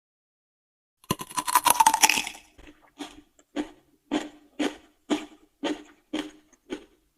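Close-miked crunching of raw vegetables: one loud crisp bite about a second in, then steady chewing, about two crunchy chews a second.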